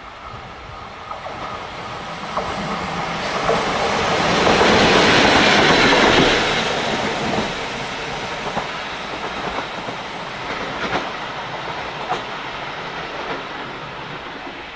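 JNR ED75 AC electric locomotive running light engine past, loudest about four to six seconds in and then fading. Its wheels clack over rail joints as it goes by.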